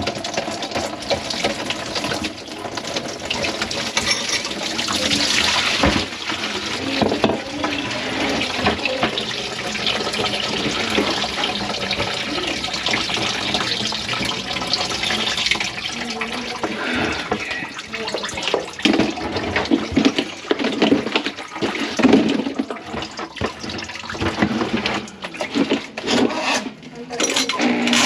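Water running and splashing in a plugged kitchen sink, with irregular knocks and clatter throughout.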